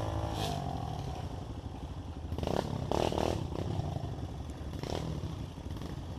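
Trail motorcycle engine running, its note rising and falling in the first second, with several sharp clattering knocks about halfway through and one more near the end.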